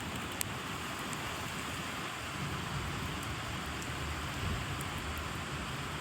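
Steady rain falling, an even hiss with a low rumble beneath it, and scattered drops ticking sharply, the clearest about half a second in.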